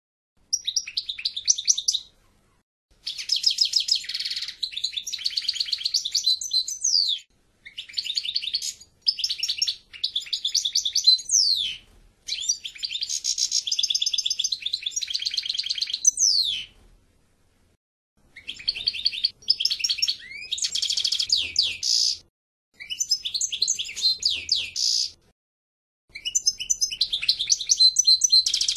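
European goldfinch singing: phrases of fast twittering trills and slurred notes, each a second to a few seconds long, separated by short pauses.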